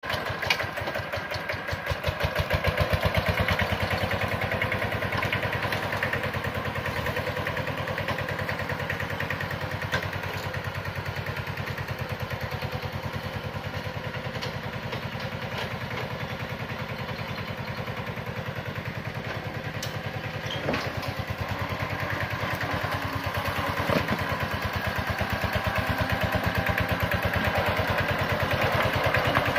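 Kubota K75 two-wheel tractor's single-cylinder diesel engine running steadily with a fast, even beat of firing strokes while it hauls a trailer loaded with coconuts. It gets louder about two seconds in and again near the end.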